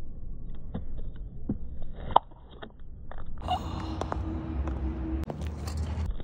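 Plastic baby pacifier squeezed under a platform high heel on asphalt, giving a few scattered clicks and creaks and one sharp snap about two seconds in. From about halfway there is a steady low rumble with a faint hum.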